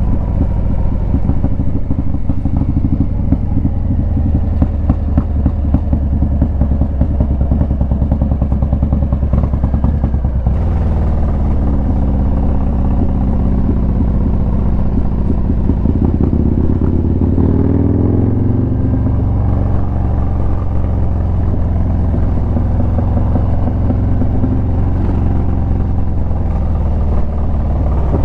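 Harley-Davidson Low Rider S V-twin engine running as the motorcycle rides along, with a fast, even pulsing. A little over halfway through the engine pitch climbs as it speeds up, then holds steady.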